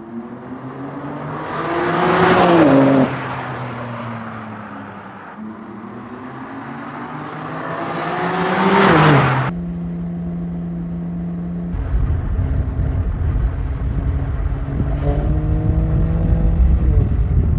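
BMW M2 CS's 3.0-litre twin-turbo straight-six passing at speed twice: each time the engine note swells and rises as the car approaches, then drops sharply as it goes by. Then comes a steady engine note, and from about twelve seconds a deep rumble as the engine revs up.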